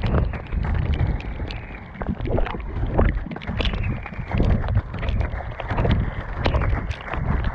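Off-road inline skates' large tyres rolling over a rough, muddy trail, with irregular knocks and scrapes from the strides and wind buffeting the microphone.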